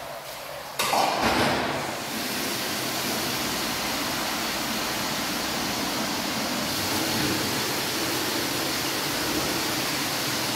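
Tap water running into a hammam's marble wall basin, turned on suddenly about a second in, louder for a moment, then running steadily.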